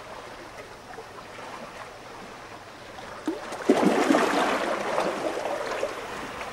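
Shallow water lapping and washing over rocks at the shoreline: a low, even wash that swells into a louder splashing rush about four seconds in, then settles.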